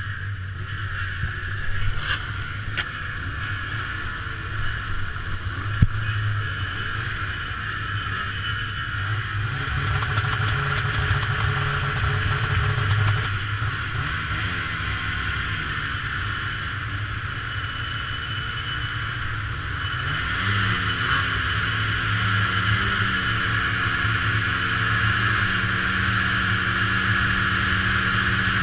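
Racing snowmobile engines idling together on the start line, the engine note shifting and rising briefly a few times as throttles are blipped.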